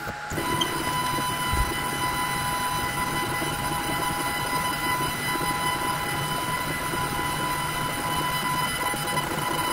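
Two Trees TTS-10 Pro laser engraver running while it engraves: a steady fan hiss with a constant whine from the stepper motors, which breaks off and resumes as the head moves back and forth.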